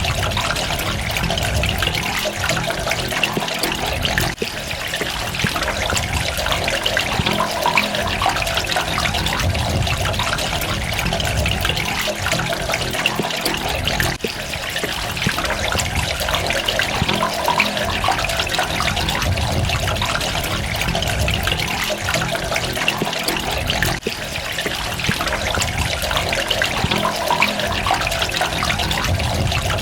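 Running water splashing and trickling steadily, with brief dips in level about every ten seconds.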